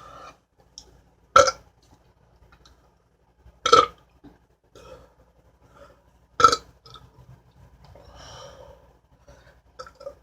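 A woman burping three times after drinking beer: three short, loud beer burps a little over two seconds apart.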